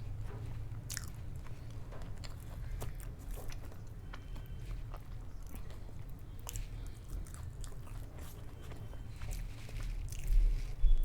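A person biting and chewing food close to the microphone, with irregular crisp crunching clicks over a steady low hum. A louder rustle and thump come near the end.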